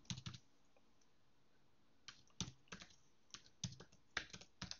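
Faint computer keyboard typing: a few keystrokes right at the start, a pause of over a second, then irregular keystrokes resuming about two seconds in.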